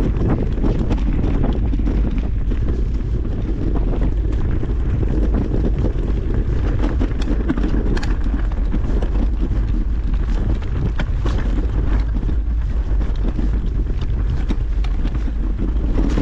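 Wind buffeting the microphone of a mountain biker's camera while riding, over a steady low rumble of tyres on the trail, with frequent short knocks and rattles from the bike on rough ground.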